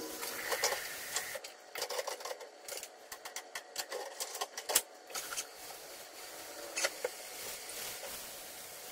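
Faint clinks and knocks of dishes and kitchenware being handled at a kitchen sink, coming as quick runs of sharp taps, thickest in the middle.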